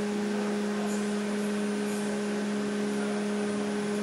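Steady machine hum: a constant low droning tone with one higher overtone over an even hiss, unchanging throughout.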